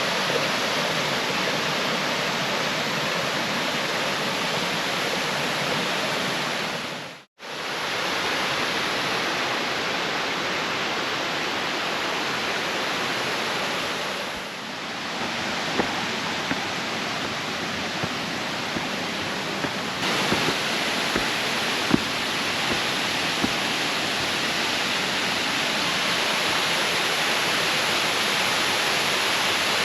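Waterfall rushing, a steady loud roar of falling water, broken once by a momentary dropout about seven seconds in.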